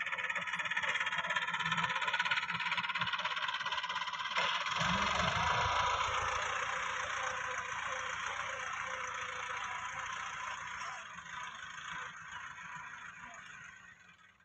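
Massey Ferguson 375 tractor's four-cylinder diesel engine running as the tractor works the soil, growing fainter as it moves away in the second half.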